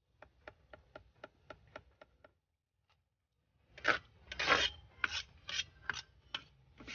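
Perforated stainless-steel spatula scraping and clicking against a black wok while lifting fried shallots out of the oil. A run of light, quick ticks comes first; after a pause of about a second come louder scraping strokes, about eight of them.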